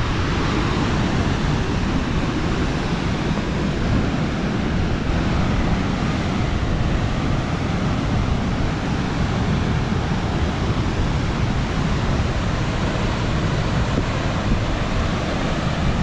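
Steady rush of a large waterfall, mixed with wind buffeting the microphone in a low rumble.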